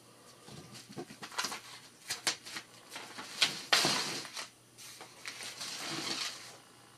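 Strips of black tape being peeled off a plywood tabletop and a sheet of paper handled and slid across the wood: a run of sharp crackles and rips, a louder papery rasp about halfway through, and a softer rustle near the end.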